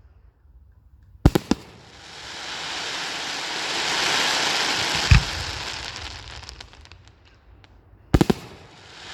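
Fireworks going off: a quick cluster of sharp bangs, then a long hiss that swells and fades over several seconds with a low thud in the middle and scattered crackles as it dies away, and another cluster of bangs near the end.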